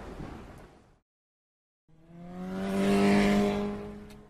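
A transition sound's tail fades out in the first second. After a short silence, an engine revs up with a slightly rising pitch, swelling in and fading out over about two and a half seconds.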